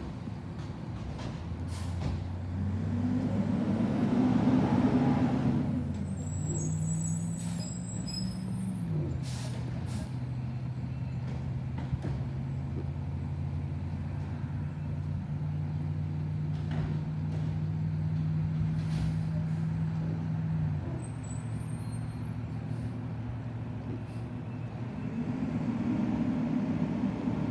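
Garbage truck's diesel engine running down the street, stepping up in pitch and holding there, then dropping back to a lower idle about 21 seconds in, with a louder swell around four to five seconds in.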